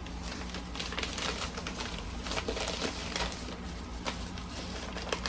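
A package being opened by hand: irregular rustling, crinkling and small clicks of packaging being handled, over a steady low hum.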